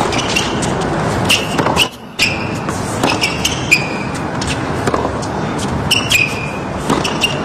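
Tennis rally on a hard court: sharp racket strikes on the ball about once a second, over a steady low background of the stadium crowd.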